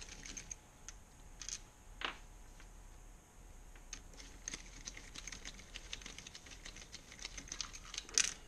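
Ratchet socket wrench clicking in short, quick runs while M8 bolts are backed out of a motorcycle engine's inner alternator casing, with light clinks of metal between the runs.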